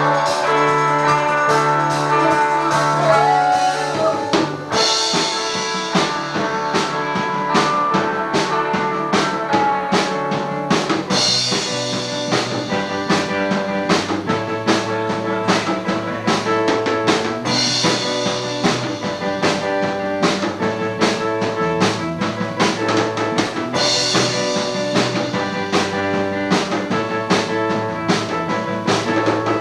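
Rock band music: a drum kit keeps a steady beat under sustained chords, with a cymbal crash about every six seconds.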